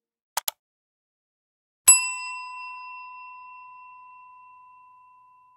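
A mouse click sounding twice in quick succession, then a single bright bell ding that rings on and slowly fades over about three and a half seconds: the sound effects of an animated subscribe-button end card.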